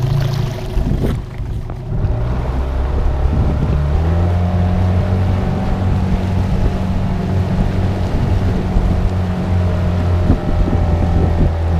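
Yamaha 9.9 outboard motor running at steady cruising speed, pushing the small boat along, with wind buffeting the microphone. The drone settles into a steady even pitch about two seconds in.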